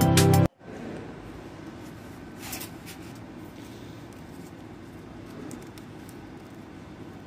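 Background music that cuts off suddenly about half a second in, then quiet room noise with faint handling of an open pencil case, including a brief soft rustle about two and a half seconds in.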